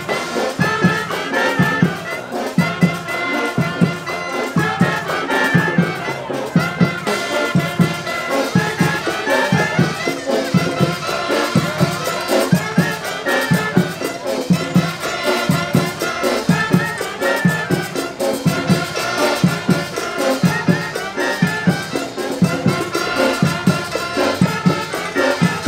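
Live band music led by brass (trumpets and trombones), with a steady beat.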